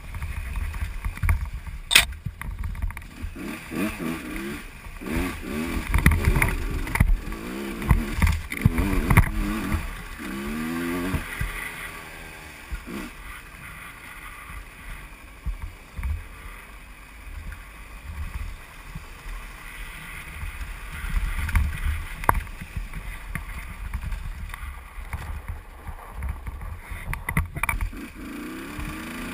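Husqvarna WRE125 two-stroke single-cylinder dirt-bike engine under way, revving up and down repeatedly through the first ten seconds or so and then running steadier, heard from a helmet-mounted camera. A sharp knock about two seconds in.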